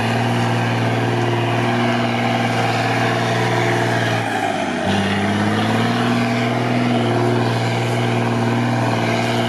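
Mercedes-Benz Unimog diesel engine running steadily under load. About four seconds in, the engine note sags and briefly drops, then picks up again.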